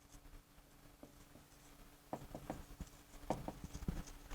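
Faint taps and scratches of a pen writing, in two short clusters about two seconds in and again past three seconds.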